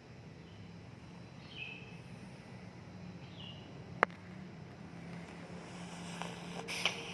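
Domestic cat snoring with a low, steady rumble. Two short high chirps sound in the background, a sharp click comes about four seconds in, and a brief scratchy noise follows near the end.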